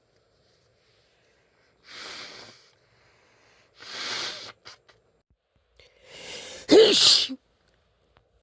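A woman with a cold takes a few hissing breaths, then sneezes once, loudly, about seven seconds in.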